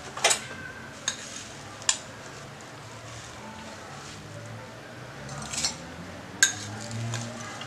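Kitchen glassware and utensil handling: three sharp clinks in the first two seconds and another near the end, with a brief scraping rustle just before it, as roasted flattened rice (poha) is tipped from a glass bowl into two glass tumblers.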